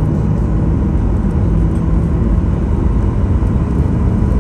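Boeing 737-800's CFM56-7B turbofan engines running steadily, heard from inside the cabin as an even low rumble with a faint whine on top while the plane taxis.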